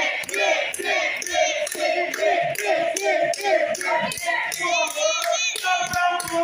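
Wrestling crowd chanting in unison, about three beats a second, with clapping along to the chant.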